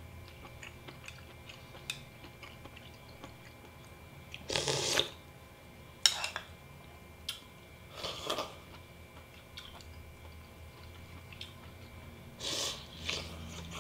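Spoonfuls of soup slurped from a small bowl, three longer slurps with a few sharp clicks of the spoon against the bowl between them, and quiet chewing.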